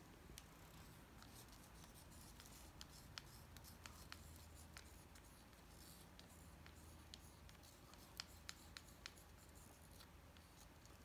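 Faint, irregular light clicks and scrapes of a wooden craft stick and a plastic measuring spoon against a small plastic cup as thick acrylic paint is scraped off the spoon.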